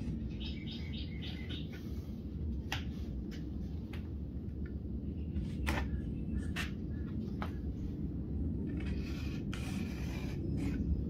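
A bird chirping about six times in quick succession near the start, over a steady low rumble. A few sharp clicks come later, and there is a short stretch of scraping near the end.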